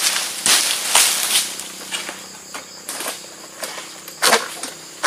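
Long-poled egrek harvesting sickle cutting at the base of an oil palm frond: its curved blade pulled through the stalk in short, sharp scraping strokes, several in the first second and a half and another a little after four seconds.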